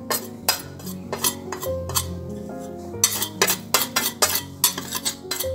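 Repeated irregular metal clinks and taps of a steel bowl and utensil as ground black pepper is knocked out of the bowl, with background music underneath.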